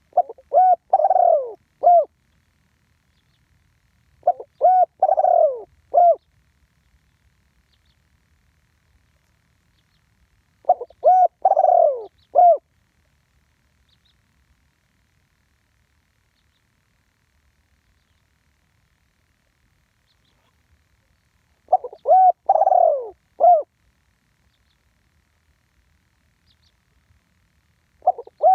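Spotted dove cooing: four phrases of several short coos, each about two seconds long, separated by pauses of a few to ten seconds. A fifth phrase begins at the very end.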